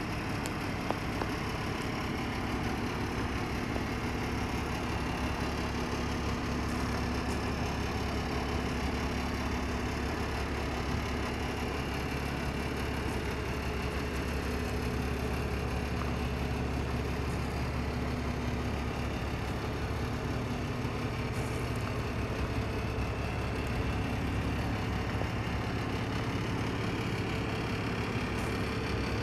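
Renault Kerax 420 dCi truck tractor's six-cylinder diesel engine idling steadily.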